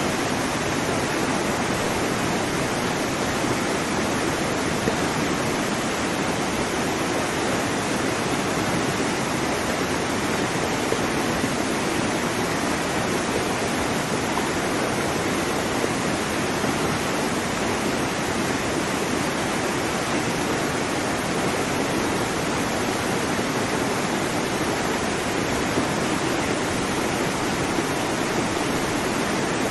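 Waterfall: a steady, unbroken rush of falling water, holding one even level throughout.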